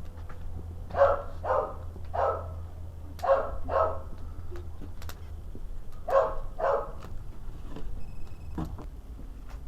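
A dog barking: seven short barks, mostly in pairs, over a steady low rumble.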